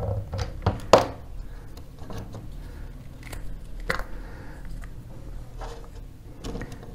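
Scattered clicks, taps and scrapes of hard plastic being handled as the diffuser dome is prised off an LED bulb. The sharpest click comes about a second in.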